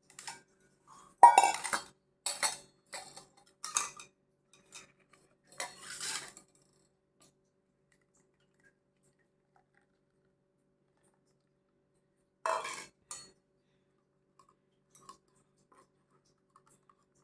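Kitchen utensils clinking and clattering as a strainer and vessels are handled to strain ground coconut milk. There are several sharp clatters in the first six seconds, the loudest about a second in, then a pause and one more clatter near the middle.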